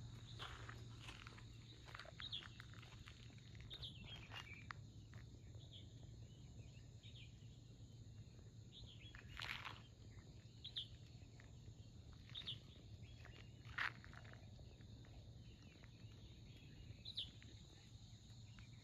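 Quiet countryside ambience: scattered short, high bird chirps and calls over a faint steady low hum, with a few louder calls about halfway through.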